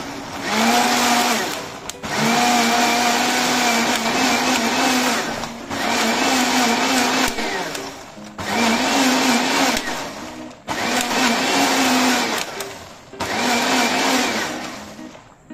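Electric blender grinding green chilies, onion, mint and tamarind water into a wet chutney paste. It is pulsed on and off in bursts of a couple of seconds, about six times, and the motor's hum rises in pitch as it spins up each time.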